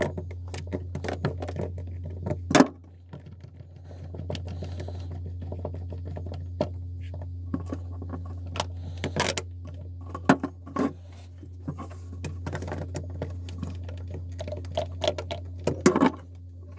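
Scattered plastic clicks, knocks and snaps as a PVC charcoal vent-filter tube for a boat's holding tank is worked free of its snap-in mounting clips, with the sharpest snaps about two and a half seconds in and near the end. A steady low hum runs underneath.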